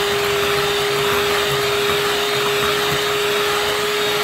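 Electric hand mixer running at a steady speed, its beaters whisking cake batter in a glass bowl: one even motor whine over a whirring hiss.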